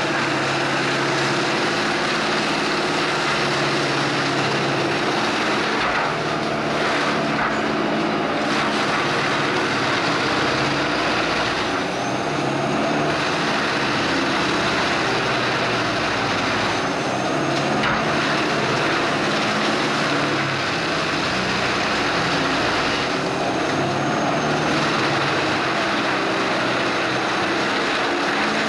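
Tracked wood chipper with a 400 hp John Deere diesel engine running under load while chipping logs and blowing chips out of its discharge chute: a loud, steady noise of engine and chipping. The noise dips briefly every five or six seconds.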